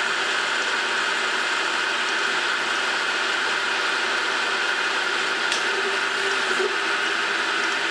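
Metal lathe running steadily while its cutting tool turns a piece of aluminum stock, peeling off stringy chips.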